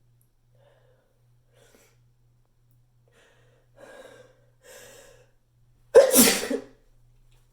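A person sneezes once, loudly, about six seconds in, after two gasping intakes of breath as the sneeze builds. The bathroom makes it echo.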